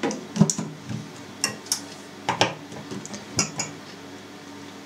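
Clear plastic lid being fitted and locked onto the stainless steel bowl of a bowl cutter: a series of irregular clacks, knocks and metallic clinks.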